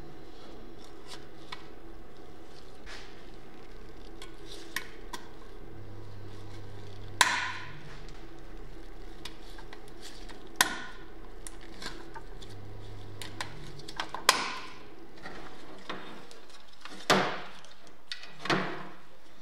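Small metal and plastic parts of the oven's electrics being fitted: light ticks and five louder, sharp clicks as spade connectors are pushed onto switch and thermostat terminals and an indicator lamp is snapped into the control panel.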